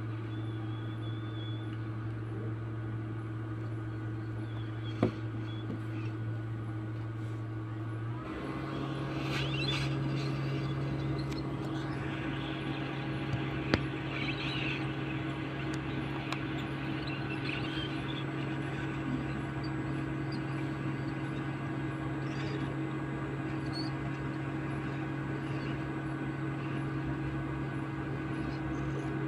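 Hot-air rework blower running steadily while heating the solder of a phone's charging connector to desolder it. Its hum steps up in pitch about eight seconds in, and two sharp clicks come through, one around five seconds and one around fourteen.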